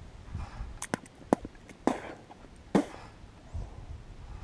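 Dry twigs and leaf litter handled by hand close to the microphone: about five sharp snaps and clicks in the first three seconds, with brief rustling between them.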